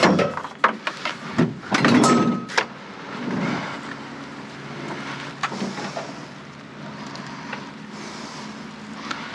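Sharp knocks and clattering of objects being handled and moved in a dumpster during the first couple of seconds, then a steady hum of a running engine with only a few scattered clicks.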